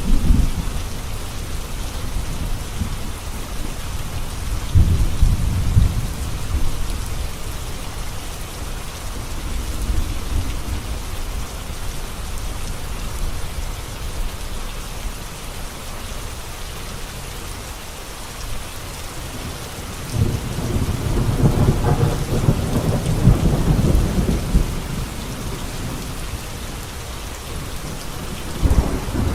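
Heavy rain pouring steadily onto a road, a dense even hiss. Low rolls of thunder rumble under it several times, the longest about two-thirds of the way through.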